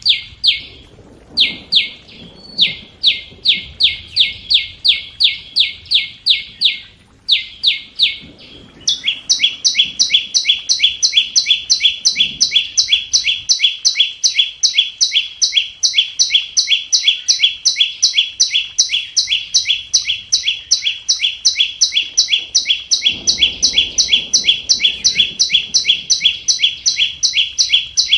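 Flowerpecker giving a long series of sharp, evenly repeated high chip notes, at first about three a second with a short break, then from about nine seconds in a faster unbroken run of about four a second. It is a decoy call recording used to lure wild birds into a trap.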